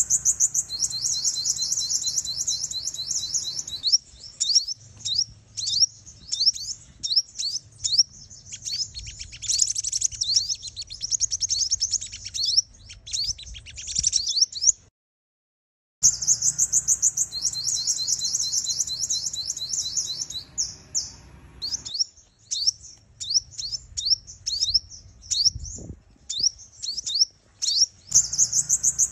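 Female sunbird calling: dense runs of rapid, high, thin chirps and trills. They break off into a second of total silence about halfway through, then resume.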